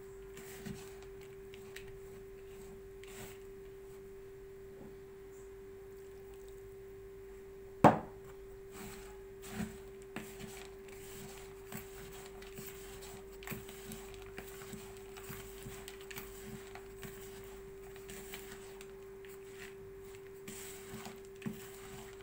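Hands rubbing and mixing a coarse ground walnut and almond filling with sugar and orange blossom water in a plastic bowl: soft scattered rustles and small clicks, with one sharp knock about eight seconds in. A steady hum runs underneath.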